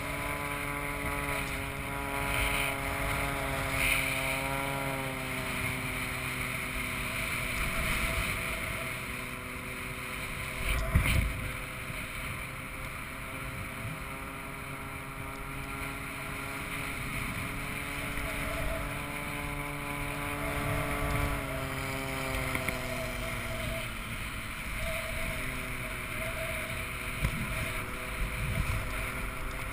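Wind rushing over the microphone with the steady drone of a circling Pitts aerobatic biplane's propeller engine, its pitch falling twice as it passes by. A brief thump about eleven seconds in is the loudest moment.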